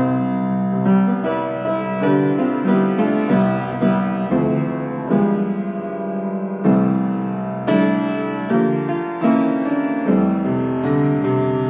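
Upright piano played with both hands: chords and notes struck one after another, each ringing on.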